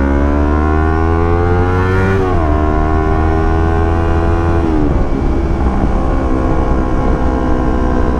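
Yamaha R25's parallel-twin engine pulling up through the gears, its pitch rising, then dropping at each of two upshifts about two and a half seconds apart, then settling into a steady cruise.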